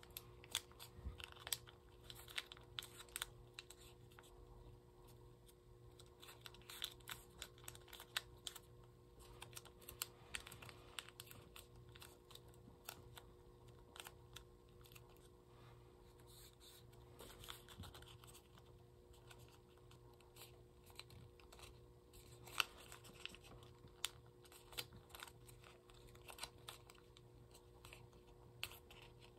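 Origami paper being folded and creased by hand: scattered soft crackles, taps and clicks of the stiff sheet, over a faint steady hum.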